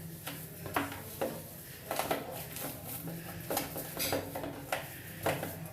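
Irregular light clicks and knocks from hands working conditioner cream into a doll's hair, over a low steady hum.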